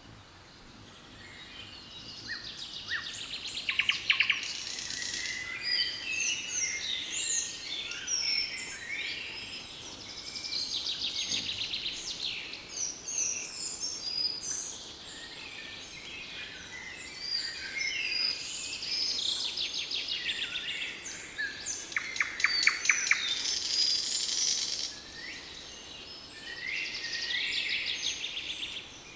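Several songbirds singing and calling together: many quick chirps and whistles with rapid trills, fading in over the first couple of seconds.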